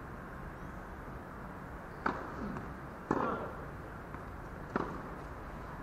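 Tennis ball being hit during a rally: three sharp, loud pocks of racket strokes and bounces, about a second and then nearly two seconds apart, over a steady background hiss.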